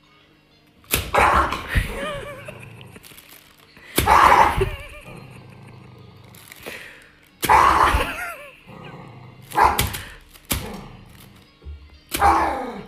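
A small poodle barking: about six sharp barks a couple of seconds apart.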